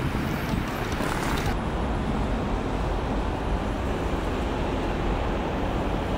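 Steady road traffic noise, a low rumble of vehicles; the higher hiss drops away suddenly about a second and a half in.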